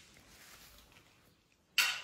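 Faint room tone, then near the end a sudden short burst of noise that fades within about half a second.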